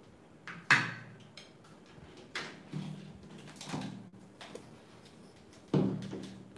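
Hard plastic knocks and clunks of a countertop blender being handled: the lid set down, the full jug lifted off the motor base and set down, the base moved. Several separate knocks, the loudest about a second in and another strong one near the end.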